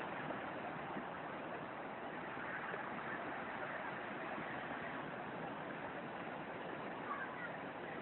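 Steady rushing of a fast mountain river's whitewater over rocks, with a waterfall's falling water.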